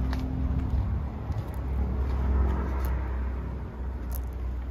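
A motor vehicle engine running with a low, steady rumble.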